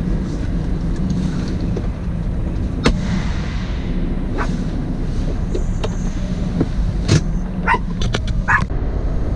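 Semi-truck diesel engine running with a steady low rumble, heard from inside the cab, with a few scattered sharp clicks and knocks.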